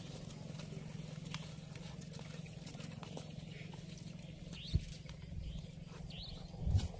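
Water buffalo moving about on dry, packed dirt: scattered hoof steps, with two dull thumps in the second half. Short rising bird chirps sound a few times over the top.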